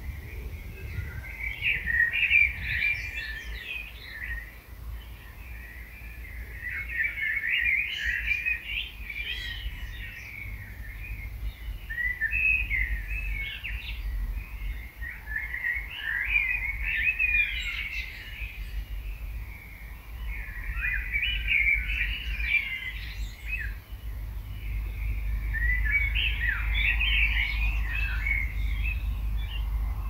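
A songbird singing in warbled phrases of two to three seconds, about six of them, with short pauses between, over a low steady rumble.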